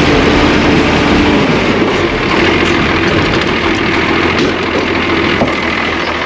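Old International Harvester tractor's engine running steadily as the tractor is driven slowly.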